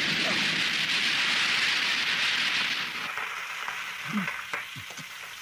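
Fire-breathing sound effect: a loud, rushing hiss of flame jetting from a man's mouth after chewing hot chili peppers. It dies down to a quieter hiss about three seconds in.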